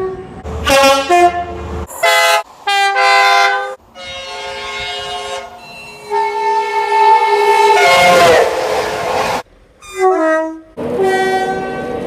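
A run of short clips of British mainline trains sounding two-tone horns. Each blast steps between a higher and a lower note, and each clip cuts off abruptly. About eight seconds in, a train rushes past loudly while its horn drops in pitch.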